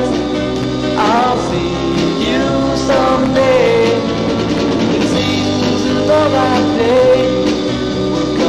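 A slow, dreamy 1960s garage-band ballad playing from a 45 rpm record: electric guitar and band with a sung vocal line.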